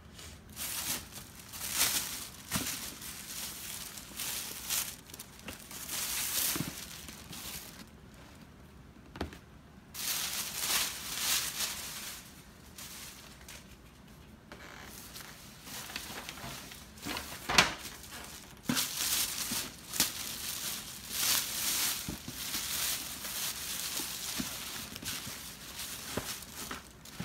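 Thin plastic shopping bag rustling and crinkling in irregular bursts as sneaker boxes are pulled out of it, with a few sharp knocks from the cardboard shoe boxes being handled and set down.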